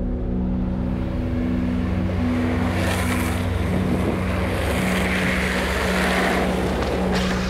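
Rushing road and wind noise of a fast downhill longboard run, swelling in the middle, over a low steady droning tone.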